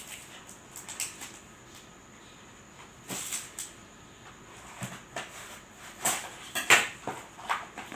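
Crinkling and rustling of plastic packaging as a sealed product box is torn open by hand, in irregular bursts, loudest about six to seven seconds in.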